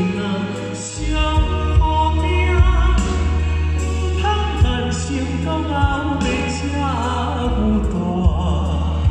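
A male singer sings live into a microphone with orchestral accompaniment. A held note near the end wavers with vibrato.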